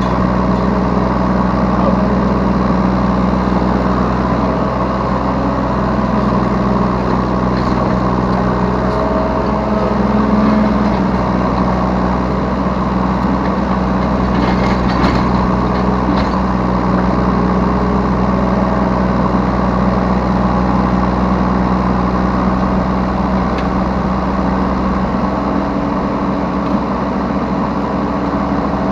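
Yanmar B3 Sigma 3-tonne mini excavator's diesel engine running steadily, heard from the operator's seat, swelling slightly about ten seconds in.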